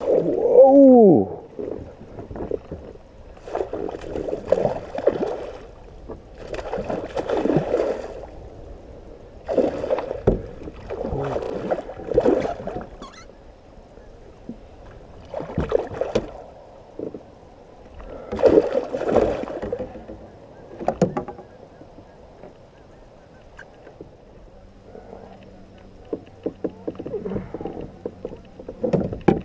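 Water swishing and splashing around a kayak in irregular surges every two to three seconds, with a short falling tone in the first second.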